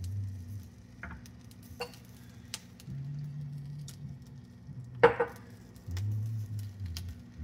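Kitchen cookware and utensil noise: a few light clicks and one louder clatter with a short ring about five seconds in, over a low hum that comes and goes.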